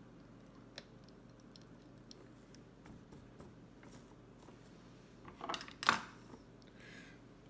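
Quiet handling sounds of fly tying: a sharp click just under a second in and small ticks as thread is wound from a bobbin around the hook in the vise, then a short cluster of clicks and rustling, loudest about six seconds in.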